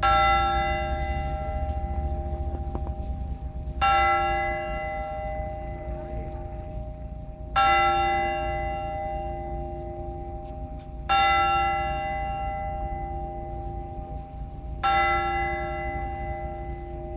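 An Orthodox church bell struck singly and slowly, the same bell about every four seconds, five strokes, each one ringing on and fading before the next. This is the single-bell ringing (blagovest) that calls people to the service.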